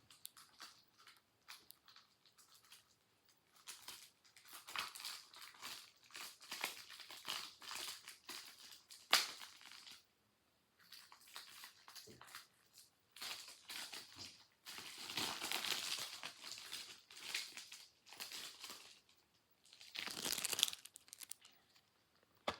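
Plastic shrink wrap crinkling and tearing as it is peeled off a Blu-ray case, in irregular bursts with a sharp snap about nine seconds in.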